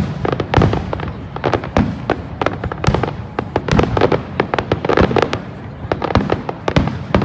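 Fireworks display: a rapid, irregular barrage of bangs and cracks, several a second, with no let-up.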